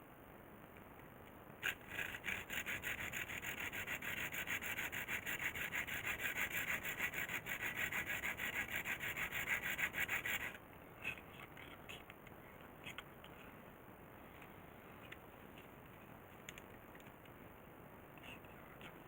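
Fast, even scraping strokes, about seven a second, starting about two seconds in and stopping abruptly after about nine seconds, followed by a few scattered clicks.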